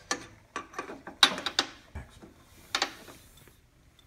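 A metal dispense lever clicking and scraping against the inside of a freezer's stainless steel barrel as it pries out the rear shaft seal. There are about eight sharp metallic clicks in the first three seconds, then it goes quieter.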